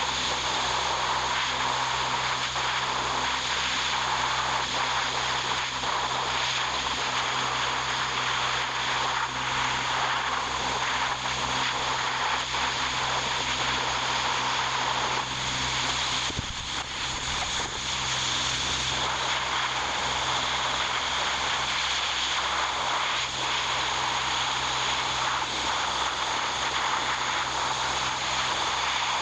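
Steady machine noise: a motor running evenly with a low hum under a constant hiss.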